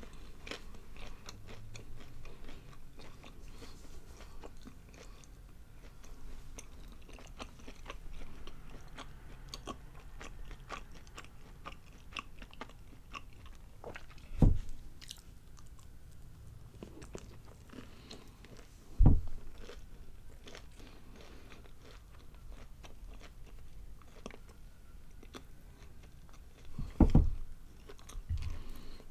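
Chewing of breaded fried mozzarella sticks close to the microphone: steady small crunches and wet mouth sounds. Three louder low thumps come about halfway, about two-thirds of the way through and near the end.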